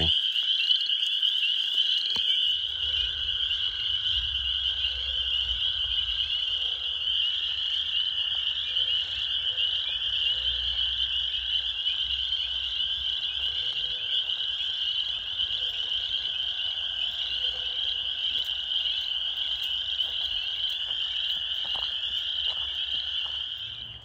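A dense spring chorus of spring peepers: countless high, short, rising peeps overlapping into one steady ringing chorus. A low rumble runs underneath.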